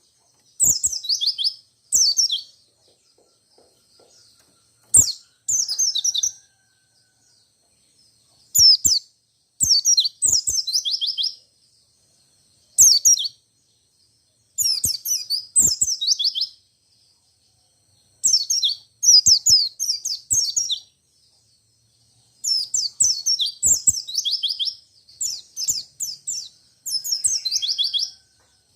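White-eye (pleci, Zosterops) song: repeated short bursts of rapid, high twittering, each phrase a quick run of falling notes lasting about half a second to two seconds, with short pauses between them.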